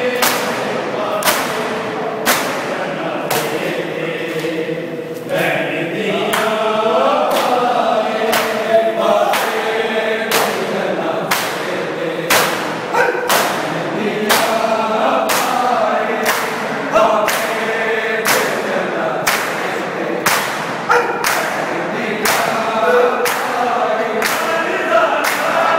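A crowd of men chanting a mourning lament in unison while beating their chests in matam. Sharp open-hand slaps on bare chests land together about once a second in time with the chant.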